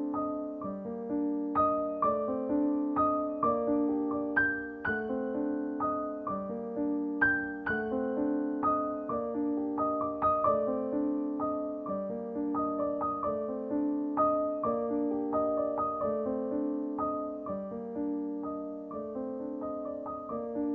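Background piano music: a gentle melody of single struck notes, each fading away, played at a steady, unhurried pace.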